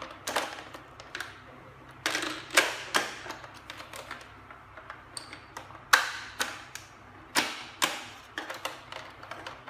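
Hard plastic parts of a toy foam-dart blaster clicking and clacking as they are handled and folded into place: about a dozen sharp clicks at irregular intervals.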